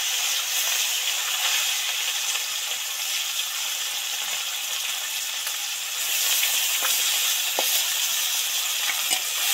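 Small mourola fish deep-frying in hot oil in a kadai: a steady sizzle, with a few faint ticks during the last few seconds.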